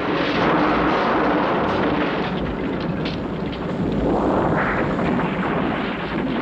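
Continuous loud rumbling roar of a burning building collapsing, swelling again about four seconds in.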